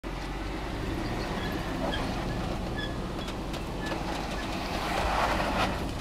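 Toyota LandCruiser 100 Series engine running steadily at low revs as the four-wheel drive crawls down a steep, rutted dirt track. About five seconds in, a louder rush of noise with a few clicks as the tyres work over the dirt and stones.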